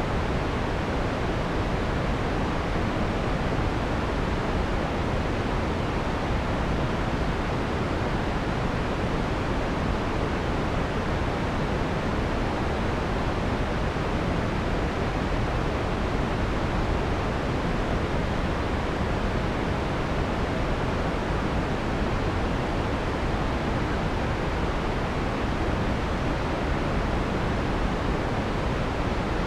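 Synthesized white noise from a noise generator, filtered so the harsh high end is rolled off, leaving a steady, even hiss with no breaks or changes.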